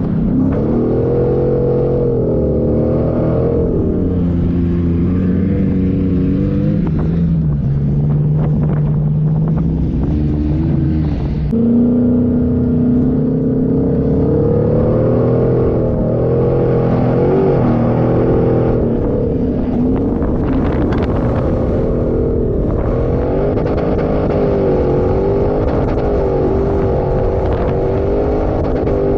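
Off-road 4x4 engine working through desert sand, its pitch rising and falling again and again as the revs change. It settles lower and steadier for a few seconds near the middle.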